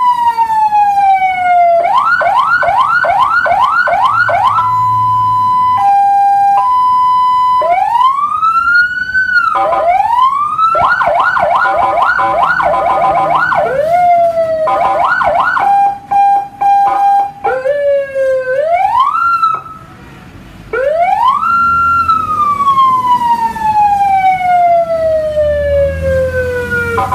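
Electronic emergency-vehicle siren stepping through its tones: a falling wail, fast yelps of about three or four sweeps a second, a hi-lo two-note alternation, rising whoops, and near the end one long wail falling slowly in pitch.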